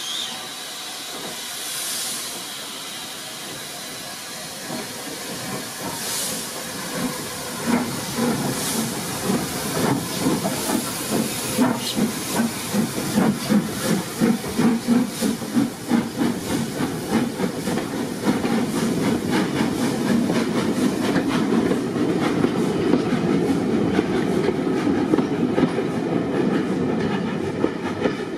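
Somerset & Dorset 7F 2-8-0 steam locomotive standing with steam hissing and two short blows of steam, then starting away: loud exhaust beats from about seven seconds in, giving way to the steady rumble and clickety-clack of the train rolling out.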